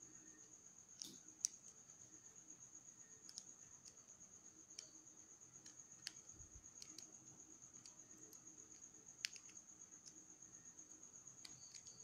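Faint, scattered clicks of a small screwdriver turning the screws of a thermostat board's screw terminal block to clamp the power wires, over a steady faint high whine.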